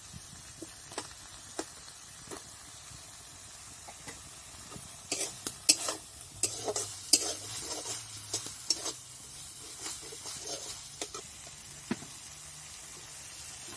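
Spatula stirring and scraping through tomatoes and spice paste frying in oil in a pan, over a steady sizzle. A run of louder knocks and scrapes against the pan comes in the middle.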